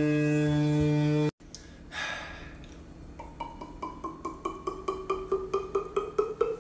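Mouth beatboxing: a steady buzzing hum that cuts off about a second in. Then, while drinking from a bottle, a rhythmic run of gulping beats that speeds up, gets louder and rises slightly in pitch.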